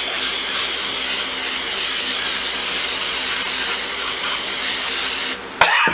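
Clean Strip aerosol paint stripper spraying from its can in one long steady hiss, cutting off about five seconds in.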